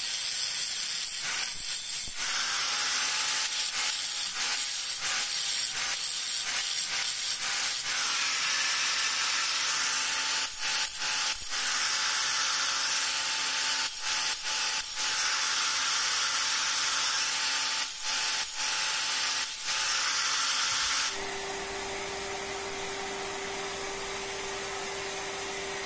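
Handheld electric angle grinder grinding a rebar chisel: a steady hissing grind with a faint motor whine, easing off briefly now and then. About 21 seconds in the grinding stops, leaving a quieter steady hum.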